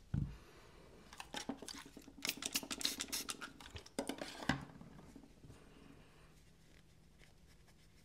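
Close-up handling noises: a soft knock near the start, then about three and a half seconds of scratchy clicking and rubbing as alcohol is fetched and used to clean spots off a 1095 carbon-steel slip joint knife.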